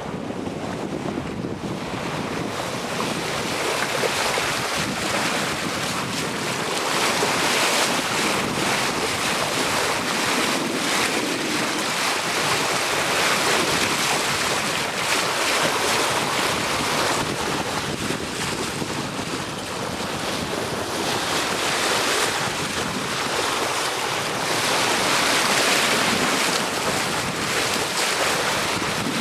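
Water rushing along the hull of a sailing yacht under way, with wind buffeting the microphone; the noise swells and eases gently.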